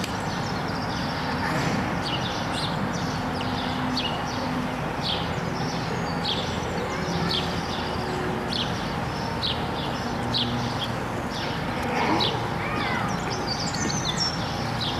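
Small birds chirping over and over, short high chirps one after another, over a steady outdoor background with faint distant voices.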